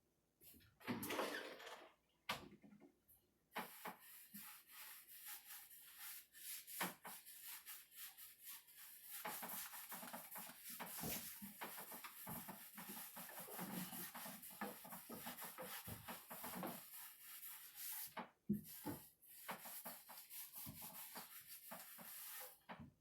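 Cloth wiping sanding dust off the bare cedar of a chest: a faint, quick back-and-forth rubbing hiss over the wood, steady for most of the stretch after a short opening swipe.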